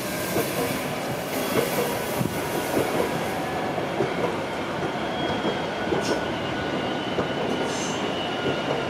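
DB class 442 Talent 2 electric multiple unit running past on the track, its wheels clicking over rail joints and points, with a faint high wheel squeal.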